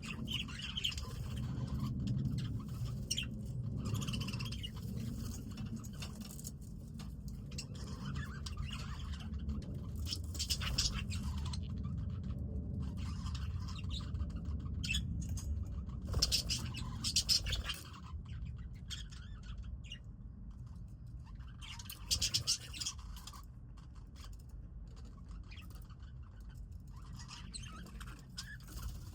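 Budgies chirping and chattering in scattered bursts, over a steady low rumble.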